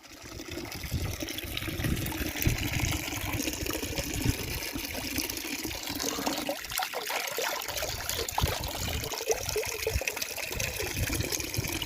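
Water trickling and splashing steadily, with many small irregular splashes.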